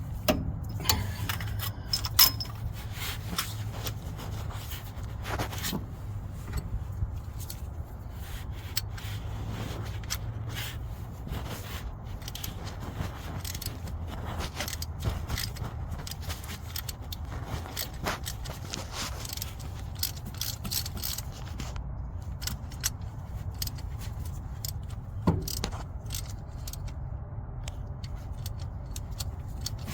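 Metal hand tools clicking, clinking and scraping while a spark plug is removed from a Chevy small-block V8 to check a misfiring cylinder, over a steady low rumble.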